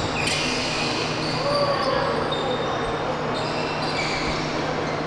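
Basketball being played on an indoor hardwood court: sneakers squeak in short, high chirps again and again while the ball is dribbled, with a player's voice calling out about a second and a half in.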